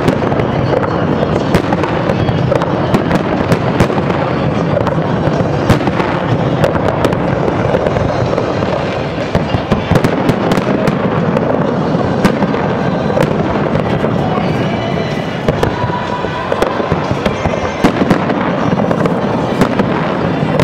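Aerial fireworks display: a dense barrage of shells bursting, many sharp bangs in quick succession over a continuous din.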